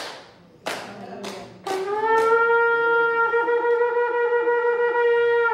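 A shofar (ram's horn) blown: a few short breathy starts, then one long steady note held for about four seconds that stops abruptly.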